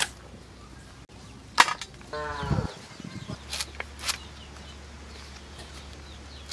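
Dried fish snapping as they are cut on an upright bonti blade: a few sharp cracks, the loudest a little over a second and a half in. About two seconds in, a farm animal gives one short call that falls in pitch.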